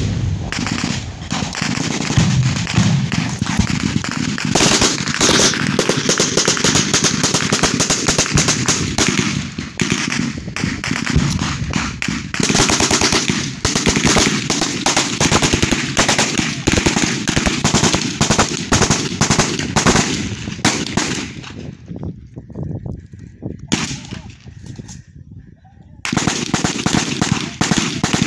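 Heavy automatic gunfire in a night firefight: dense, continuous bursts of rapid shots. After about twenty seconds it thins to scattered shots for a few seconds, then heavy firing resumes near the end.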